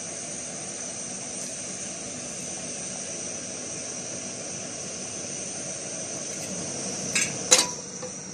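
Steady hiss of a portable gas burner heating a pot of boiling pasta. Near the end come two metallic clanks, the second louder and briefly ringing, as a metal frying pan is set down on the burner.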